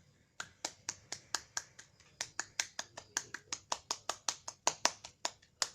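A hand slapping skin in brisk, even strokes, about four or five sharp slaps a second, starting about half a second in. It is the patting (tepukan) technique of a totok syaraf nerve-pressure massage.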